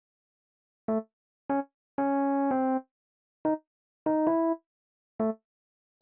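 Synthesized piano playing short, separate chords, about eight in all, with dead silence between them; a pair around two seconds in is held longer than the rest.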